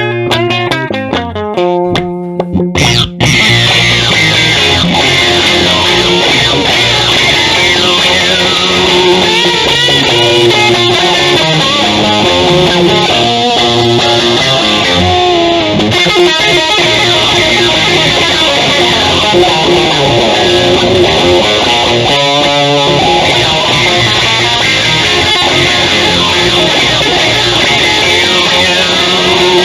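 Instrumental dub music with electric guitar and bass. The band cuts in and out in short stop-start breaks for about the first three seconds, then plays on continuously.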